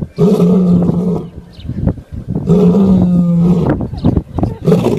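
A lion snoring: loud, buzzing snores of about a second each, repeating roughly every two seconds, the third beginning near the end.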